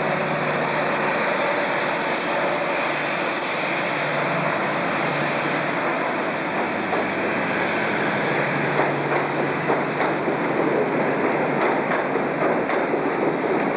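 InterCity 125 High Speed Train with its Class 43 diesel power car running past: a steady mechanical rumble with a thin high whistle that fades out about halfway. Then, from about nine seconds in, the coach wheels click rapidly over the rail joints.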